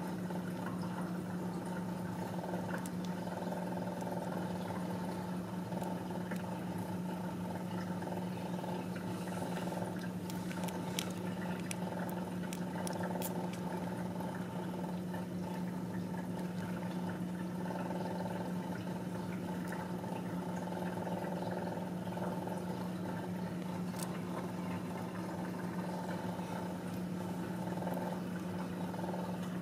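Ragdoll mother cat purring steadily while her newborn kittens nurse, with a few faint clicks in the middle.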